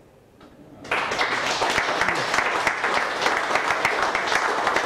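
Audience applauding: the clapping breaks out suddenly about a second in after a brief hush and goes on at an even level.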